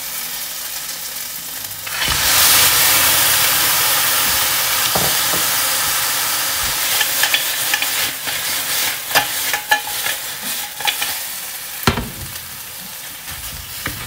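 Blanched seafood (large shellfish) tipped into hot oil and chili paste in a metal pan, setting off a sudden loud sizzle about two seconds in that slowly dies down. From about halfway on, a spatula clicks and scrapes against the pan as the stir-fry is turned.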